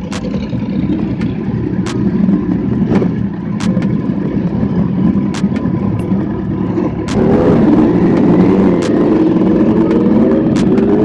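A vehicle engine running steadily with a low rumble and scattered sharp clicks. About seven seconds in it climbs sharply in pitch as it is revved or accelerates.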